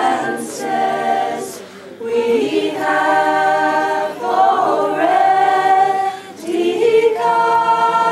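A choir of mixed voices singing unaccompanied in harmony: long held notes in phrases, with short breaths between phrases about two and six seconds in.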